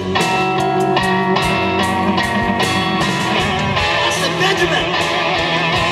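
Blues band playing live: a Les Paul-style electric guitar plays held lead notes with vibrato over bass and drums.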